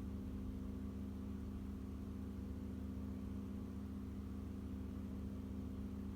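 A steady, even low hum of a motor or engine running, holding one pitch throughout.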